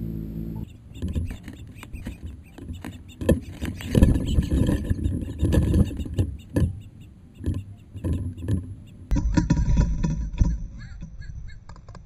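Brief steady hum of a hovering hummingbird's wings, then close-range feeder noise from a camera mic inside a bird feeder: irregular knocks, clicks and low rumbling as birds perch and feed. The sound changes abruptly about nine seconds in, with one more flurry of knocks before it goes quieter.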